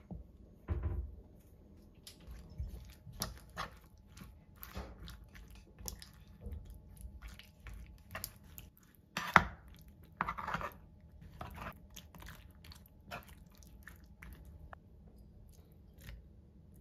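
Honey-soaked lemon slices being stirred with a metal spoon in a wooden bowl and then moved into a glass jar with tongs: scattered wet squelches, scrapes and light clicks, with one sharp knock about nine seconds in.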